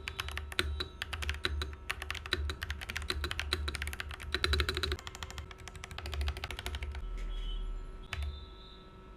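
Monka A87 mechanical keyboard with Sea Salt tactile switches being typed on in fast runs of keystrokes. The typing stops about seven seconds in, a single key click follows just after eight seconds, and then it goes quiet.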